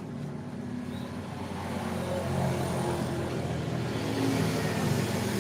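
A road vehicle's engine running, getting louder from about two seconds in as it comes closer, with a rising hiss of road noise.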